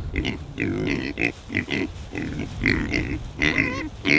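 Pigs grunting in a rapid run of short calls, about two to three a second.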